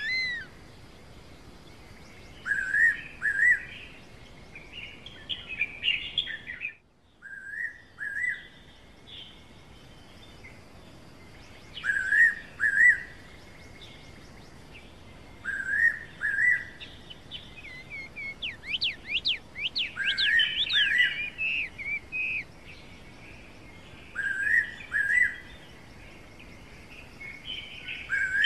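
Fairy pitta calling: clear two-note whistles, a pair every three to four seconds, over other forest birds chirping. A quick run of high sweeping notes from another bird comes about two-thirds of the way in, and the sound briefly cuts out about seven seconds in.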